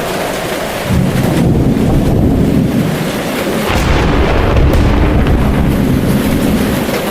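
Thunder rumbling over steady rain. A low roll starts about a second in, swells again a little past the middle and fades near the end.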